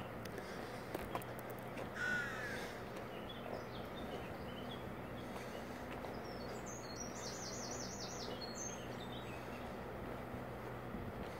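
A crow cawing once, harshly, about two seconds in, with a small songbird singing a high, fast warble further on, over a steady low outdoor hum.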